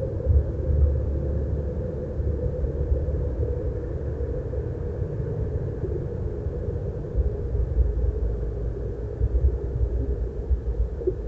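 Continuous low outdoor rumble with uneven swells in loudness.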